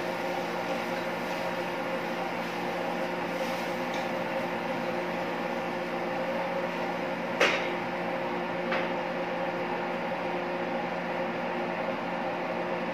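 Steady machine hum of kitchen equipment, holding several fixed tones. A sharp click about seven seconds in and a softer one just over a second later.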